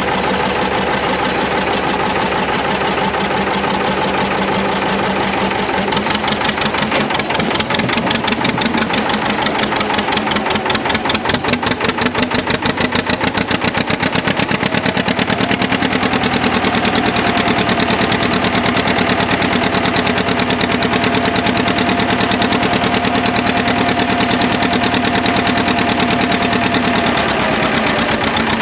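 John Deere Model R's two-cylinder diesel engine running with a rapid, even pulse of firing beats. About six seconds in it is throttled up and gets louder, then works hard under load pulling the sled, putting out black smoke.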